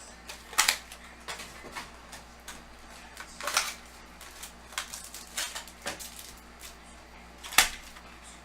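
Hands handling a hobby box of trading cards and its foil packs: irregular taps, clicks and short crinkling scrapes, with a sharp click near the end the loudest.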